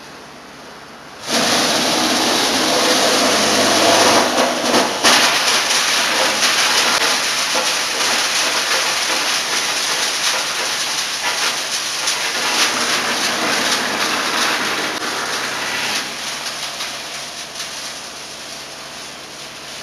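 Wood sawdust machine, a belt-driven crusher, grinding wood into sawdust: a loud, dense grinding noise that starts suddenly about a second in and fades over the last few seconds.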